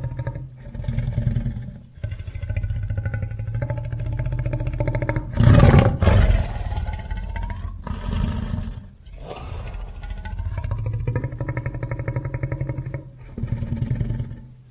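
Designed creature sound effect of a fictional tapiraphant: a string of low, rough roaring calls with sliding pitch, separated by short breaks, the loudest a harsh blast about five and a half seconds in.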